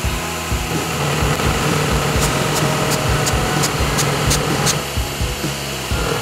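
Bosch PBD 40 drill press running, its spinning bit milling a slot through plywood as the table is fed, with a steady cutting noise. Background music with a steady beat plays over it.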